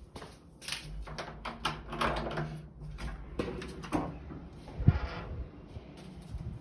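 Irregular knocking and clattering, echoing, with one sharp loud thump about five seconds in.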